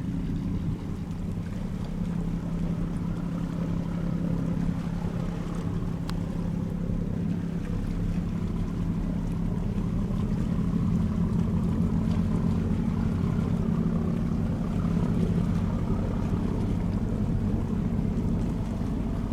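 A ferry's engines running with a steady low hum, a little louder in the second half, over a wash of wind and water noise.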